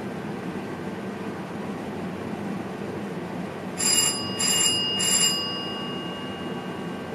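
An electric bell rings in three short bursts about half a second apart, its tones ringing on briefly after the last. Underneath, the VIRM train's steady running rumble heard from inside the cab.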